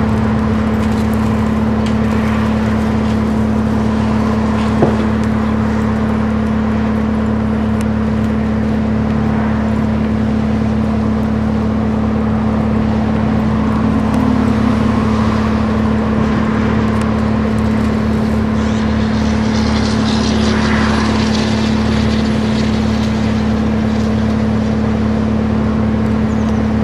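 A motor running steadily and loudly, with one strong low hum, and a single sharp click about five seconds in.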